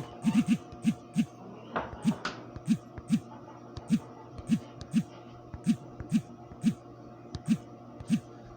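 Slow, irregular keystrokes, roughly two a second, each a short click with a dull thud, over a faint steady hum.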